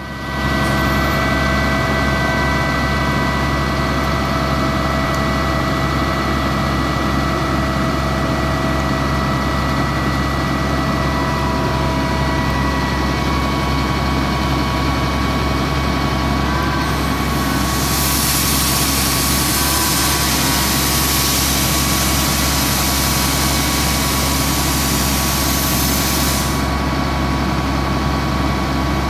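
The Caterpillar 3126 inline-six diesel of a Freightliner FL80 truck idling steadily. For about nine seconds past the middle, a loud hiss joins in, then cuts off sharply.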